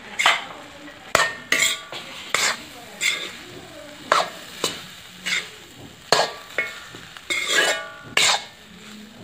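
Slotted steel spoon scraping and knocking against a black iron kadai while cooked rice is mixed into brinjal masala: about a dozen irregular metallic strokes, some ringing briefly.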